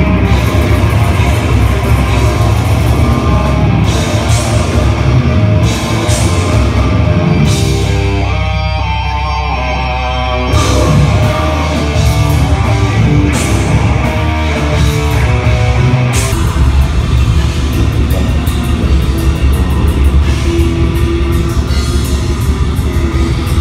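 Live heavy metal band playing loud, with distorted electric guitars, bass and a fast drum kit. The music changes abruptly to a different passage about sixteen seconds in.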